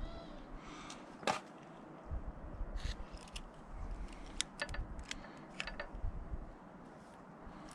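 Small metal hand tools clicking and ticking against an aluminium engine part while a Helicoil thread insert is worked into a cam bearing cap, with handling rumble underneath. There is one sharp click about a second in, then a run of light metallic ticks between about three and six seconds.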